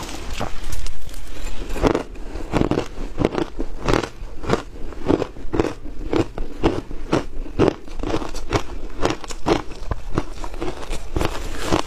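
Shaved ice being bitten and chewed: a steady run of crisp crunches, about two or three a second, loudest around the first big bite.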